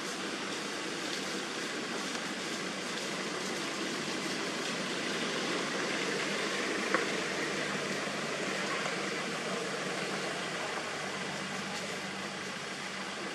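Steady background hiss with no clear pitch, with one sharp click about seven seconds in.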